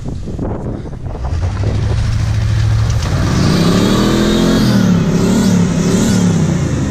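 Lincoln stretch limousine's engine revving under load as the long car climbs a steep dirt bank. It runs low and steady at first, then about three seconds in rises in pitch and loudness, wavers, and eases off near the end.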